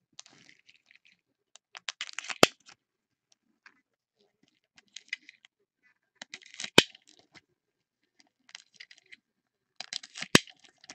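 Foil trading-card pack wrappers crinkling in gloved hands as 2014 Topps Chrome packs are handled, in short bursts. Three sharp clicks stand out, about four seconds apart.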